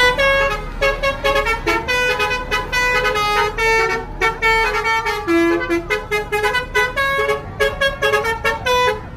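Telolet horn, a multi-tone musical bus horn, playing a fast tune of many short notes at changing pitches, which cuts off near the end.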